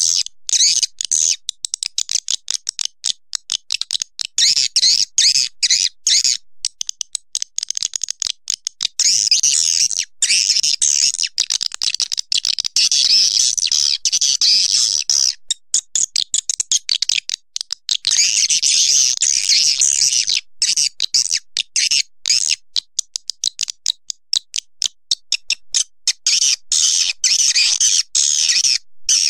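Swiftlet calls: dense, high-pitched chattering twitter in fast choppy pulses, swelling into longer continuous runs and breaking off in short gaps. This is a recorded swiftlet lure call, of the kind played to draw swiftlets into a nesting house.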